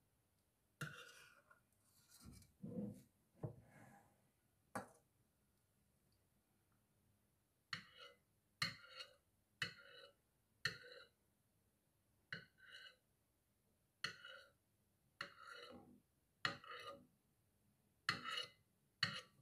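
Metal spoon scraping across a porcelain plate in a dozen short strokes, often in pairs, as sauce is spread. Each stroke is brief and slightly squeaky. A few soft knocks and rubs come before the strokes, with a pause of about three seconds in between.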